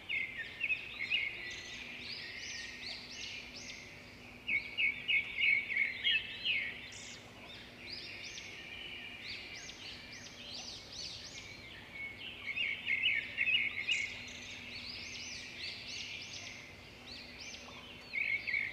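Small birds chirping, many quick high chirps in busy bouts every few seconds with softer chirping between.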